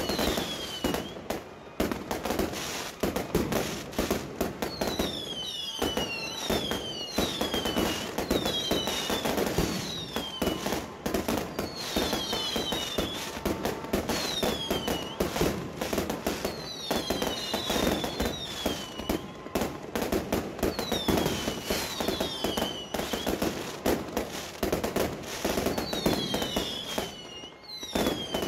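Fireworks display: a dense, continuous run of bangs and crackling bursts, with short high whistles that fall in pitch, heard again and again.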